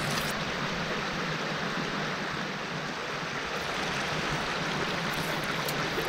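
Small forest creek running steadily: an even rush of flowing water.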